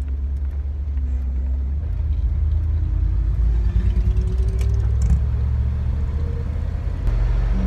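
1991 Chevy C3500's 305 V8 engine pulling the truck under acceleration, heard from inside the cab: a low, steady rumble with a faint tone that slowly rises in pitch over the middle of the stretch, then a short dip and a new, steadier note near the end.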